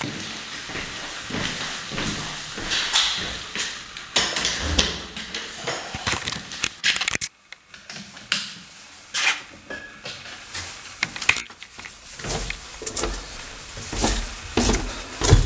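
Footsteps on hardwood floors and wooden stairs, irregular knocks and clicks, with a brief hush about seven seconds in.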